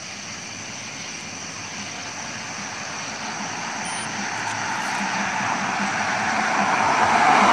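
A road vehicle approaching: a steady rush of tyre and engine noise that grows gradually louder, loudest near the end.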